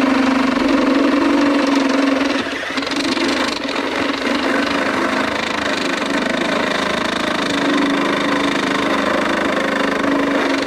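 Power drill running steadily under load, boring a hole in a car's oil pan for a turbo oil-return bung. It dips briefly about two and a half seconds in, then runs on.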